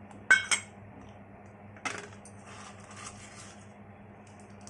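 Stainless-steel container and lid clinking twice with a brief metallic ring, then a knock and aluminium foil crinkling as it is peeled off the container.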